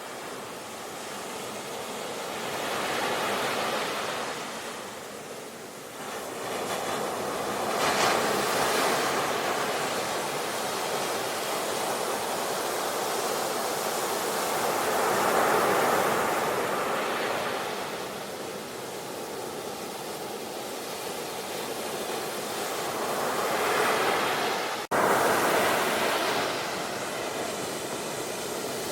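Sea waves breaking and washing up the shore, a steady rush that swells into a new surge every several seconds. There is a sudden brief break in the sound near the end.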